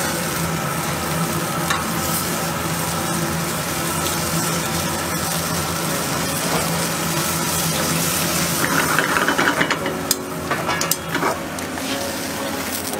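Beaten egg sizzling in a small omelette pan over a gas burner while it is stirred with chopsticks, with a few clicks and scrapes of the chopsticks against the pan a little after halfway.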